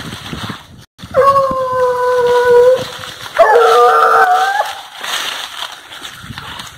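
American hunting hounds baying: two long howled calls about half a second apart, the first held steady and slightly falling, the second wavering, with footsteps rustling through dry leaf litter.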